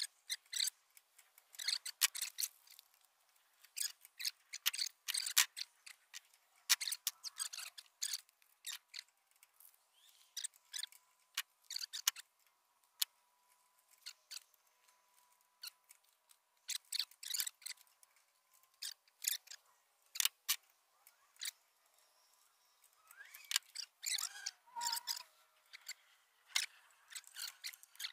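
Irregular light clicks, rustles and scrapes of a paper card and a hand tool being worked against a small engine's exposed flywheel and ignition coil. The engine is not running.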